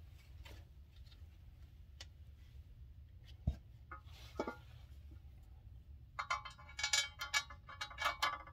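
A low steady hum, a single knock about three and a half seconds in, then from about six seconds a quick run of metallic clinking and rattling of metal parts being handled.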